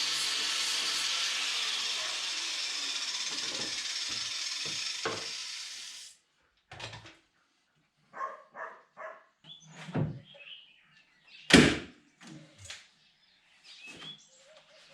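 A power tool running with a steady hiss that fades and stops about six seconds in, followed by a scatter of knocks and thunks from work on the toolbox.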